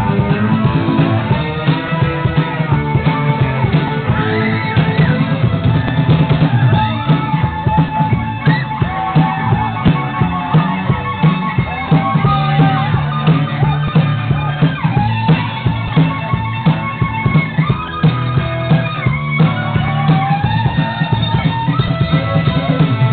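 Live Celtic folk-rock band playing a dance tune with a steady beat.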